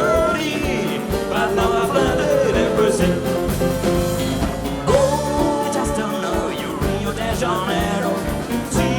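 Live rock band playing a film-music medley: drums keeping a steady beat under bass, guitar and keyboards, with a wavering lead melody on top.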